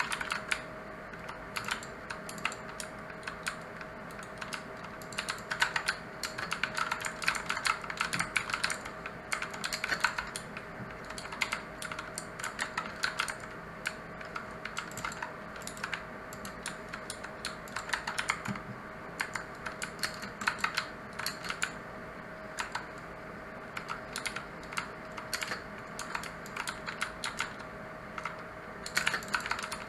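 Typing on a mechanical keyboard with clicky blue switches: fast, irregular flurries of sharp key clicks with brief lulls. A faint steady hum runs underneath.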